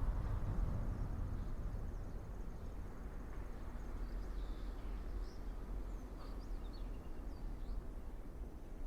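Outdoor ambience: a steady low rumble of background noise, with a faint, thin, high trill in the first half and several short, high bird chirps from about four seconds in.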